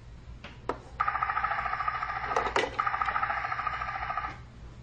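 Battery-powered toy train's small motor and gears whirring steadily for about three seconds, starting about a second in and stopping near the end. A few sharp clicks come just before it starts and twice in the middle.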